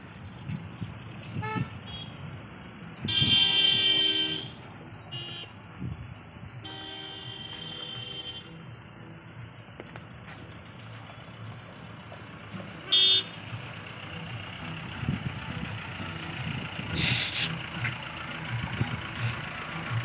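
Sirohi goat kids bleating: a loud drawn-out call a few seconds in, a second long one soon after, and short calls between and later, over a steady low background noise.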